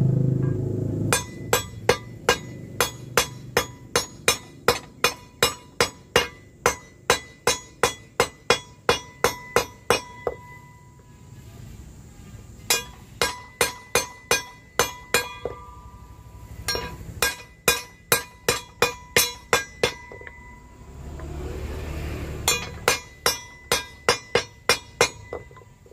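Hammer blows on a brass boat-propeller blade held against a wooden block, each strike leaving a short bright metallic ring, about two to three blows a second in runs with brief pauses. The blade is being bent to set the propeller's pitch.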